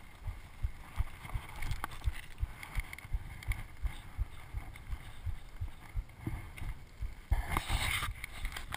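Wind buffeting a GoPro HD's microphone in low, irregular thumps. About seven seconds in a louder rubbing and scratching starts as a gloved hand handles the camera housing.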